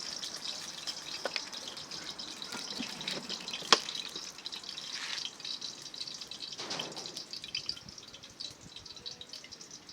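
Fried dumplings cooking in hot oil: a steady sizzle with many small crackles and one sharper pop a little under four seconds in.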